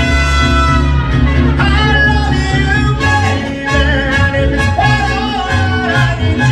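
Mariachi band playing an instrumental passage: bowed violins carry a wavering melody over a steady, deep bass line.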